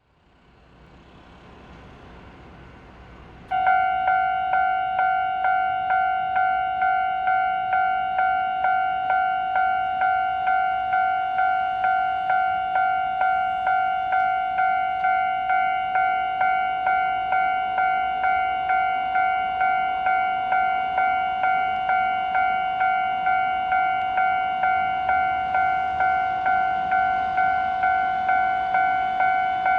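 Japanese level-crossing electronic warning bell starting up about three and a half seconds in, then striking about twice a second in an even, steady 'kan-kan' pattern.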